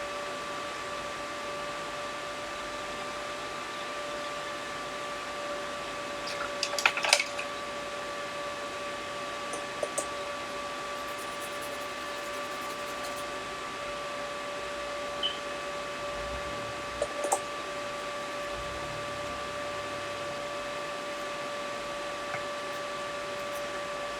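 Steady electrical hum with a thin, even whine from running workbench equipment, broken by a few light clicks and taps from handling, a cluster about 7 s in and more around 10 and 17 s.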